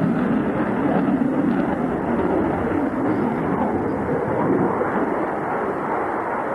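Fighter jet's engines running as it manoeuvres through a display, heard as a steady, rushing rumble that eases slightly toward the end.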